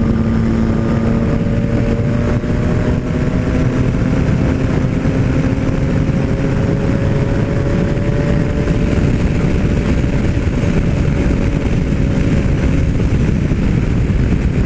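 Yamaha MT-09 Tracer's three-cylinder engine pulling steadily at highway speed, its note rising gently as the bike speeds up and easing slightly near the end. Heavy wind rush over the microphone runs under it throughout.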